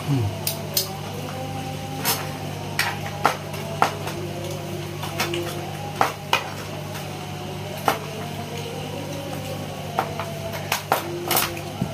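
Eating sounds from a man chewing and biting meat off a cooked goat's head by hand: scattered sharp mouth smacks and clicks, about a dozen, over a steady low hum.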